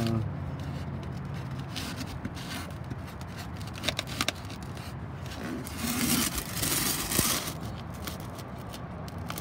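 Scraping and handling noises with a few sharp clicks about four seconds in and a longer scrape a little after six seconds. A low hum underneath fades out after the first couple of seconds.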